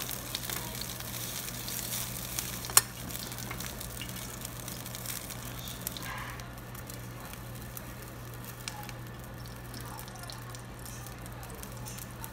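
Pork belly sizzling and crackling faintly on a wire rack over a charcoal grill, over a steady low hum. A single sharp click sounds about three seconds in.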